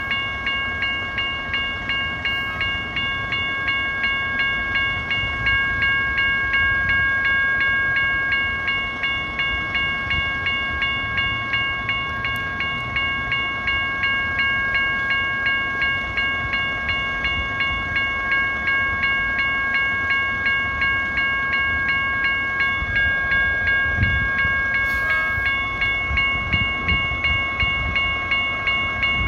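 Railroad bell ringing steadily, about two strikes a second, each strike ringing out before the next, over a low rumble that swells briefly about 24 seconds in.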